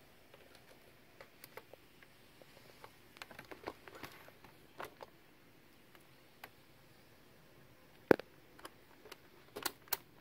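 Scattered light clicks and taps from handling a digital multimeter and its test probes while measuring on a laptop motherboard, with one sharper click about eight seconds in and a few more near the end.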